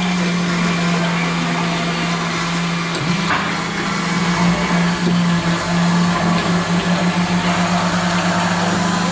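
Coffee machine running with a steady, low motor hum. The hum wavers about three seconds in and flutters rapidly for a few seconds near the end.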